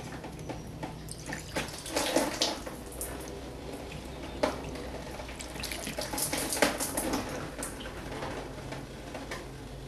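Screen wash fluid running and dripping out of a BMW E90's washer tank through the empty pump socket into a container below, with irregular splashes and knocks. It drains freely because the blocked pump filter has been pulled out.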